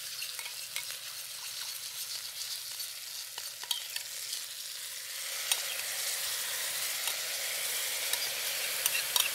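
Salmon fillets sizzling in hot oil in an electric wok, a steady hiss with scattered sharp pops and clicks. The sizzle grows louder about halfway through, as a soy-based sauce is spooned into the pan.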